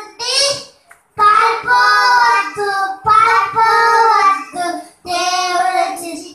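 Two young boys singing into handheld microphones without accompaniment, in short phrases with a brief break about a second in and another near five seconds.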